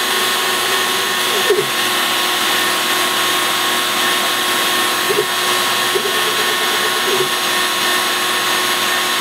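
WidgitMaster Midi CNC machine cutting into particle board: its motor runs with a steady whine and a cutting noise, and the pitch briefly wavers up and down a few times.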